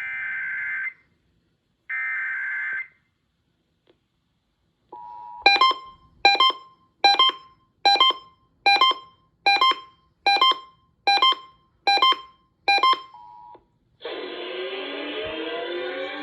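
Emergency Alert System end-of-message: the last two raspy bursts of SAME digital data tones, about a second each. After a pause comes a short steady tone, then about ten evenly spaced bell-like chimes, roughly one every three-quarters of a second, another short tone, and music starting near the end.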